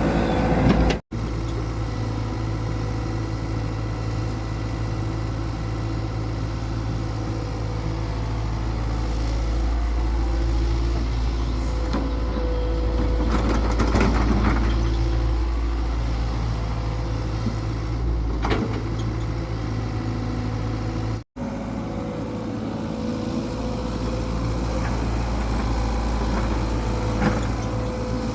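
An engine running steadily at a constant speed, with a few clattering knocks over it about halfway through. The sound cuts out abruptly twice for a split second.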